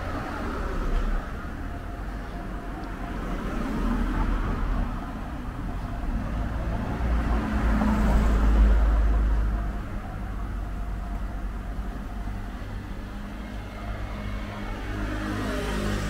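Street traffic noise: a steady low rumble, with a road vehicle passing that swells to a peak about halfway through and then fades.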